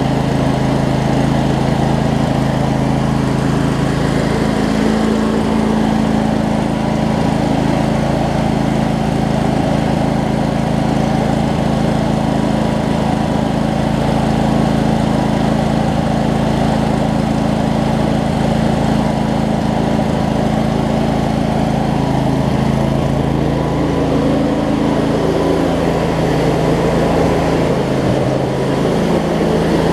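Craftsman DLT riding mower's 25 hp Briggs & Stratton V-twin engine running steadily, its pitch wavering slightly near the end.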